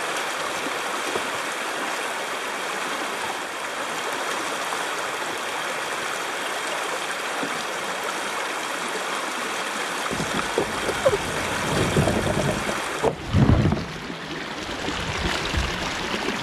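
Shallow river rapids, water rushing steadily over rocks. From about ten seconds in, irregular low thumps and knocks come in, and the rushing changes abruptly about three seconds later.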